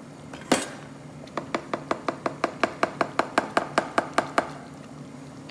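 A plastic slotted spatula knocking once against a nonstick cooking pot, then tapping on it quickly and evenly, about five taps a second for some three seconds.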